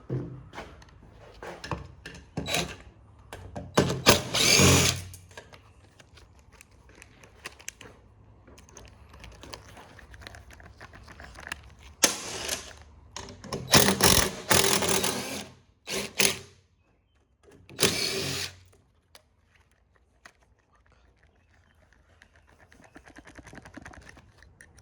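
Power drill-driver run in short bursts of about a second, backing out the fasteners on an extruded aluminium frame, with small clicks and knocks of tools and parts between the bursts.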